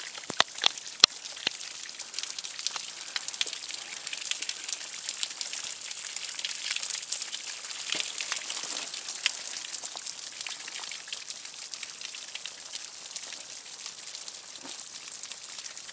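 Heavy rain falling, a steady hiss with many sharp drop ticks, some close and loud in the first second and a half, heaviest in the middle.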